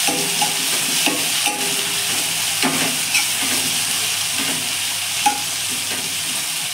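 Ginger-garlic paste and golden-fried onions sizzling in hot oil in a kadhai while being stirred, with scattered scrapes and knocks of the stirring utensil against the pan.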